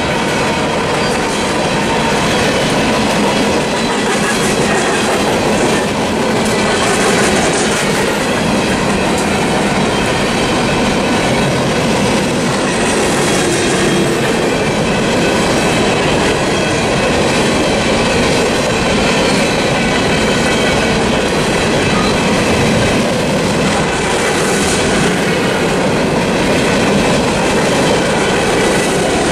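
Empty coal hopper cars of a BNSF freight train rolling past at a level crossing. The wheels clatter over the rail joints in a steady, loud run of car after car.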